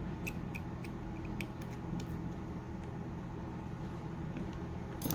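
Faint, scattered small clicks of tools and small phone parts being handled during an iPhone 5c home button installation, over a steady low hum; a slightly louder click comes near the end.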